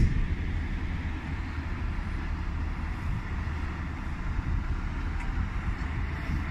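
Fire engines' diesel engines idling in the station bays: a steady low rumble.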